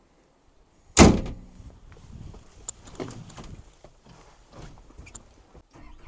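Mini excavator cab door slammed shut about a second in, followed by smaller knocks and clunks from inside the cab.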